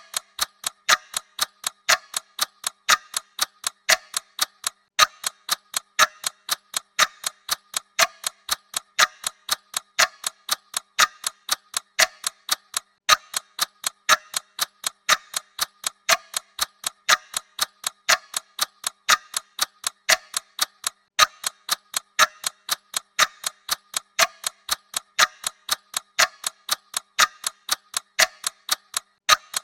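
Clock ticking sound effect: a steady, even run of sharp ticks that goes on without a break.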